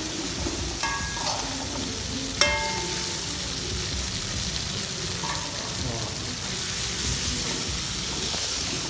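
Ground spice paste sizzling steadily as it is stir-fried in hot oil. A metal utensil strikes the pan with a short ringing clink a few times, the loudest about two and a half seconds in.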